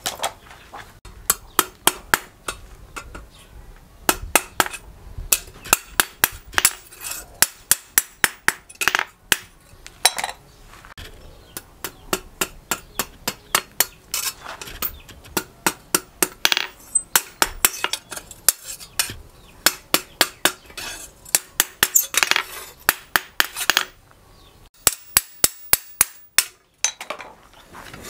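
Hand hammer striking a steel billhook blade on a steel cylinder anvil: sharp metallic clinks in steady runs of about three blows a second, with a short pause near the end.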